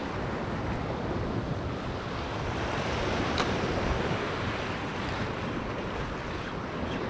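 Sea surf washing against a rocky shore, with wind buffeting the microphone; one sharp click about halfway through.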